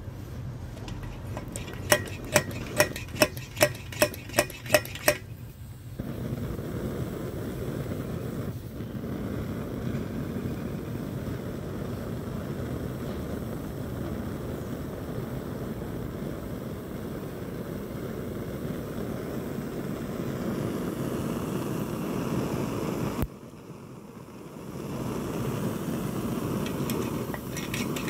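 Kerosene pressure stove: about eight quick pump strokes, each with a short squeaky click, then the burner burning with a steady rushing noise once pressurised. Near the end the rush drops away suddenly and then swells back.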